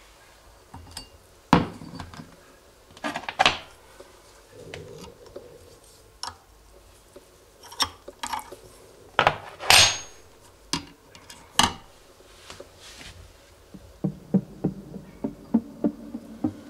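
Metal parts of a friction-test rig being handled and taken apart by hand: irregular clinks and knocks of steel fittings, a spanner and a cast-iron weight plate being set down on the table, a few much louder than the rest. Near the end a quicker run of light ticks.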